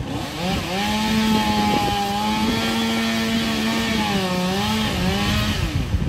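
Chainsaw running at high revs with a steady, buzzing note that sags briefly a few times as the bar bites into the wood, then drops and cuts off near the end.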